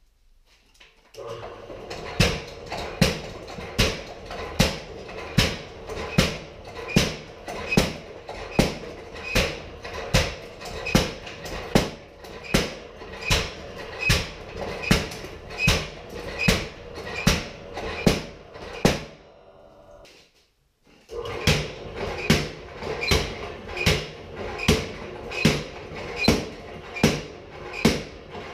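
Homemade cam-driven power hammer running: its electric motor and gear reducer hum steadily while the hammer head comes down on the railroad-track anvil in sharp, ringing metal blows, about one and a half a second. The blows break off for about a second and a half about two-thirds of the way through, then start again at the same pace.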